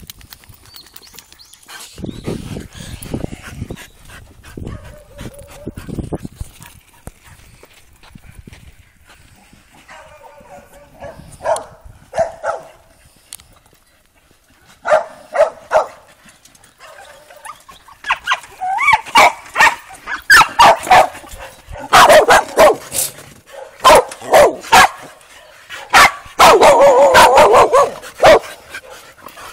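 Dogs barking while playing together. There are a few quiet calls around a third of the way in, then a run of loud, short barks through the second half, with a rapid flurry of barks near the end.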